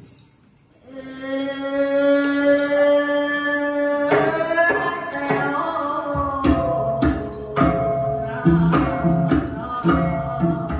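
Music for a traditional dance: after a brief pause, a new piece opens with one long held note, moves into a melody, and a steady percussion beat joins about six seconds in.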